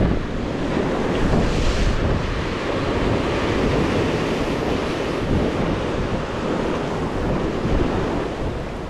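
Sea waves washing onto the shore, with wind buffeting the microphone. The surf hisses louder for a moment about two seconds in.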